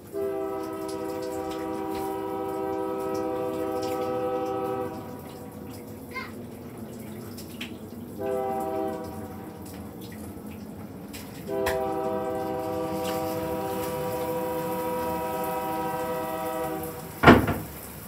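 Diesel locomotive's multi-chime air horn sounding three blasts: long, short, long. A sharp, loud bang comes just after the last blast, near the end.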